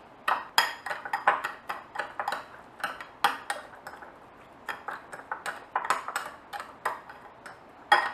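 A spoon scraping and clinking against its container while stirring a gritty mix of raw turbinado sugar and coconut oil, in quick irregular strokes, with one louder clink near the end.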